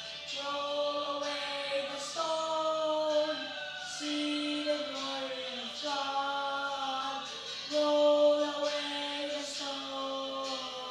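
Slow sung chant: a single melody of long held notes stepping up and down in pitch.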